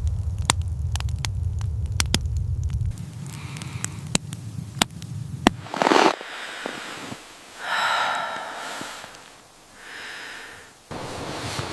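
Scattered sharp crackles over a low rumble for the first few seconds, thinning out. Then two short pitched cries, the first louder, about two-thirds of the way in.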